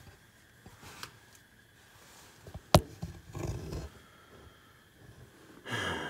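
A single sharp knock about three seconds in, the loudest sound, with low scuffing and rumbling just after it and a short breathy rush of noise near the end.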